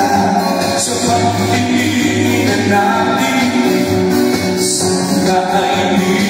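Singing over loud backing music, the voice and the accompaniment going on without a break.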